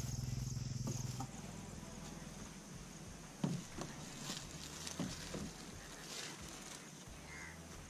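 A few dull knocks and thumps, the loudest about three and a half seconds in, with plastic sheeting crinkling as a plastic-wrapped car rear seat is handled and lifted out. Energetic rock music plays underneath.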